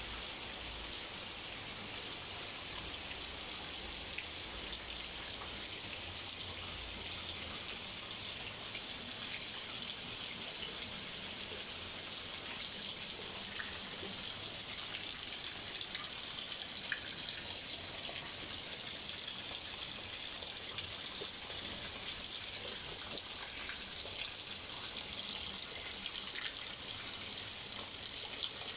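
Heavy rain falling steadily, splashing into standing water on a flooded concrete yard: an even, unbroken hiss with a few faint drip ticks.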